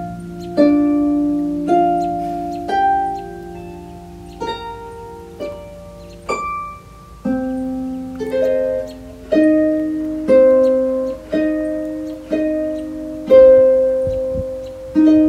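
Pedal harp playing a slow melody, about one plucked note a second, each note ringing out and fading.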